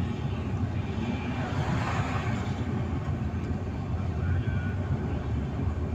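Road noise inside a moving car's cabin: a steady low rumble of tyres and engine. About two seconds in there is a brief swell of hiss.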